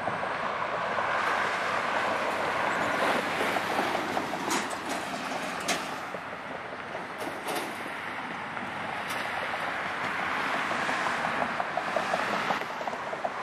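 Road traffic going by: a steady noise of passing cars, with a few sharp clicks in the middle.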